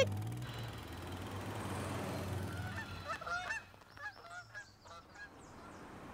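Birds calling with short honks and chirps about halfway through, after a fading stretch of steady noise with a low hum.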